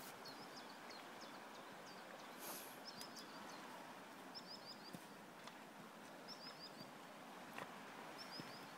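Steady rush of a wide, shallow river flowing over stones, faint. Over it a small songbird repeats a short phrase of three or four quick falling notes, about every two seconds in the second half.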